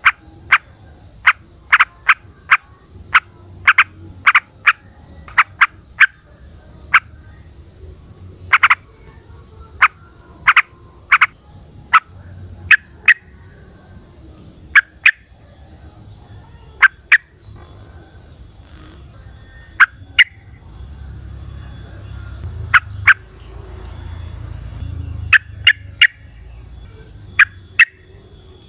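Yellow-vented bulbuls (trucukan) giving many short, sharp calls that fall in pitch, loud and irregularly spaced, as a lure to draw other bulbuls to answer. Insects chirr in a steady pulsing high chorus behind them.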